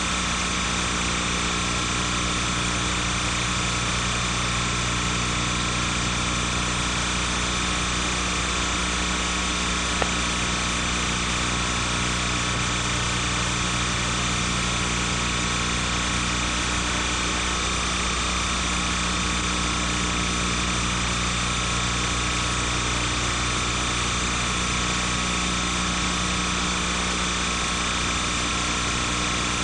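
Steady machine-like hum and hiss with several constant tones, unchanging throughout, and one faint click about ten seconds in. The footage is silent, so this is background noise on the soundtrack, not sound from the parade.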